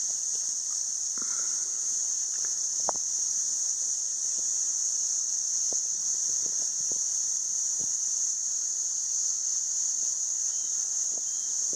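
Steady, high-pitched drone of an insect chorus, cicadas or crickets, unbroken and even, with faint scattered ticks and taps underneath.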